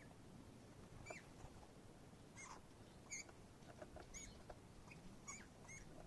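Small songbirds around a winter bird feeder calling faintly: about six short, high, thin chirps spread a second or so apart.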